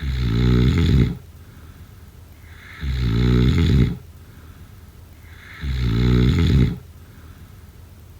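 A person snoring: three loud snores, each about a second long and coming roughly every three seconds, with quiet breathing between them.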